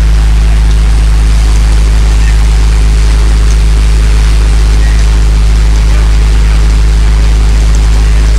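Groundnut (peanut) thresher running steadily while being fed groundnut plants: a loud, unbroken low mechanical drone of the machine at work.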